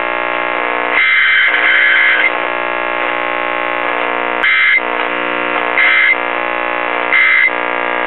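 Late-1940s GE tube radio chassis putting out a loud, steady, buzzy hum through its loudspeaker with the volume all the way down, with a few short brighter bursts breaking in. It sounds like a defective filter capacitor, but the cause is the new electrolytic filter capacitors' negative leads wired to the chassis instead of circuit ground (B−).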